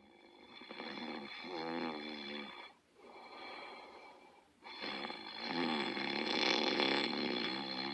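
Snoring in sleep: a rattling snore, a quieter breath, then a longer, louder rattling snore about halfway through.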